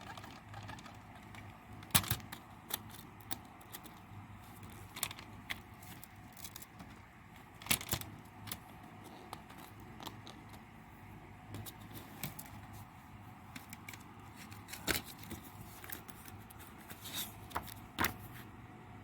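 Plastic CD jewel case being handled, with a dozen or so sharp, irregular clicks and light rattles as the case is worked and its broken disc hub is dealt with.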